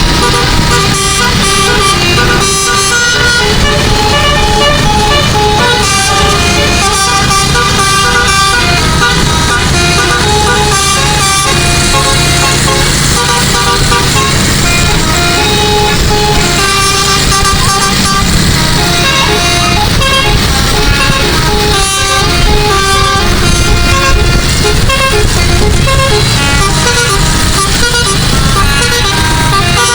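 Bus's 12-note Basuri telolet musical air horn playing a fast run of short, stepped notes as a tune, over a steady low rumble.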